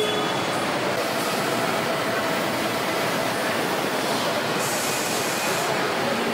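Car assembly line machinery making a steady, dense din, with a brief hiss about four and a half seconds in.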